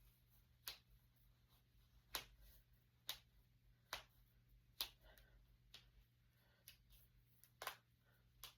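Finger knuckles cracking: a string of sharp, single pops, about one a second.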